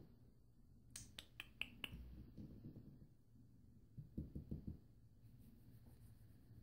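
Near silence with faint room tone. A quick run of about five soft clicks comes between one and two seconds in, and brief low rustling around four seconds in.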